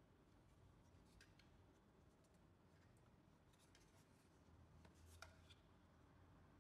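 Near silence, with a few faint clicks and rubs from the plastic camera body and its solar panel bracket being turned in the hands; the sharpest click comes about five seconds in.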